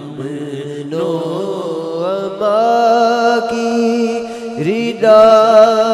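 Male reciter singing an Urdu naat, drawing out long held notes that slide from pitch to pitch without clear words; about four and a half seconds in he swoops up into a louder new phrase.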